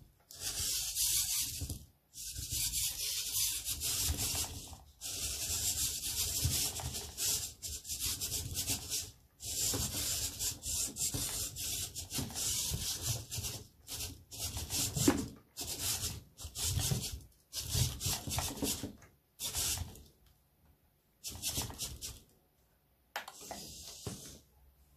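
Hobby servo motors in a quadruped robot's legs buzzing and grinding in bursts of a second or two, stopping and starting as the body is tilted, raised and lowered. The bursts get shorter and further apart near the end.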